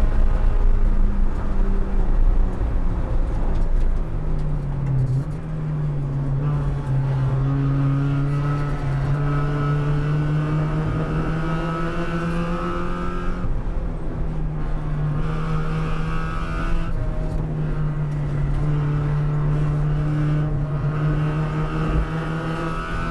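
A Spec Miata's 1.8-litre four-cylinder engine, heard from inside the race car's cockpit over road and wind noise. It runs at high revs flat out down the straight, then the note drops and shifts about five seconds in as the car brakes and downshifts. It then holds at steady, lower revs through the corner.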